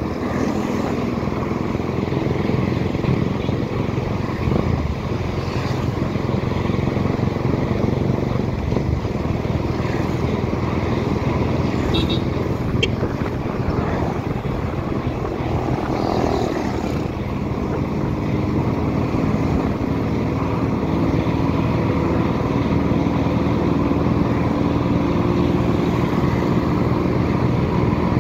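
Small motorcycle engine running steadily at cruising speed, heard from the rider's seat, with road and wind rush.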